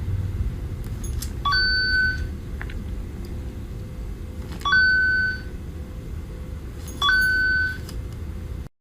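Three short electronic beeps about two and a half seconds apart, each a brief blip stepping up to a held high tone, over a steady low rumble.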